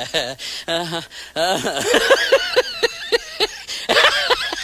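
Voices from meme sound clips: short, wavering vocal sounds, with a run of quick, evenly spaced syllables about halfway through.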